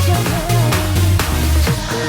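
Electronic dance-pop music with a heavy, pulsing bass beat, in a stretch without sung lyrics.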